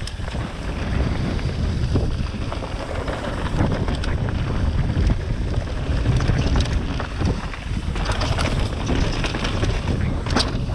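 Wind on the microphone and mountain bike tyres running over a rough, rocky trail, with scattered knocks and rattles from the bike over bumps.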